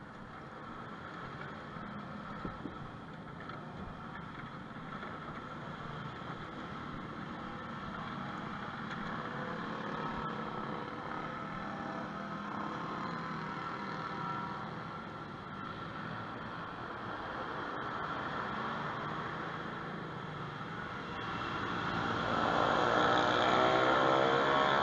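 Small kart engines running on the track, a steady mixed drone of several engines at once that grows louder near the end.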